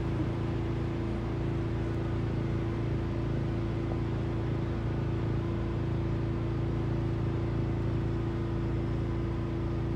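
Steady mechanical hum of a running motor: an even drone holding a few fixed low pitches with a light hiss over it, unchanging throughout.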